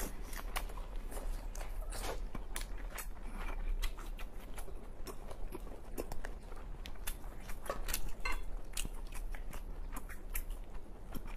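A person chewing steamed lobster meat close to the microphone: wet chewing, lip smacks and irregular sharp clicks. The lobster shell crackles as it is pulled apart by hand.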